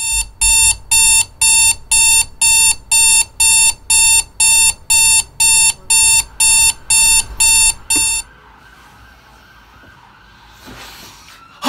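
Electronic alarm clock beeping loudly about twice a second, then cutting off suddenly about eight seconds in, leaving quiet room tone.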